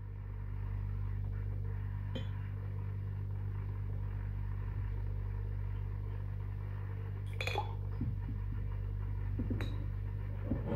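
Beer poured from a glass bottle into a tilted glass beer mug, with a few short clinks of glass on glass, over a steady low hum.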